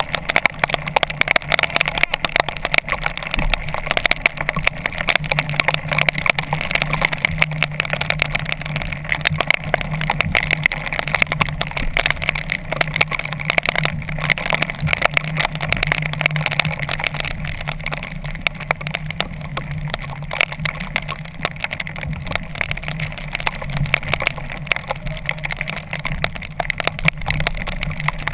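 Storm wind, rain and spray buffeting the camera, with water rushing past the hulls of a tandem outrigger kayak, over a steady low engine hum.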